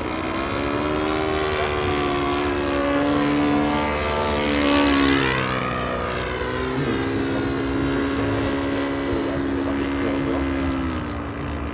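Propeller engine of a 1:5 scale SAI KZ II radio-controlled model airplane droning in flight. It is loudest about five seconds in, where its pitch sweeps down, then runs steady, and its pitch drops again near the end.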